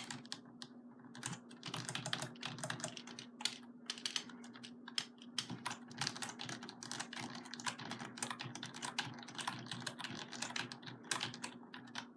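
Computer keyboard keys being pressed rapidly, a dense run of irregular clicks, over a steady low hum.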